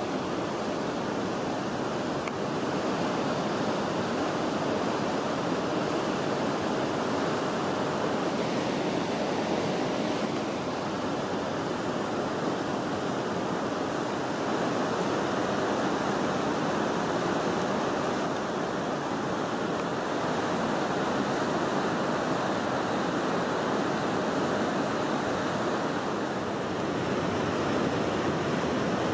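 Steady rush of river water flowing at a weir, an even noise without pauses or knocks.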